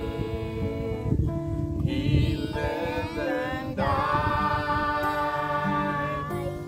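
A family of adult and children's voices singing a hymn in unison to a strummed acoustic guitar, holding some notes long.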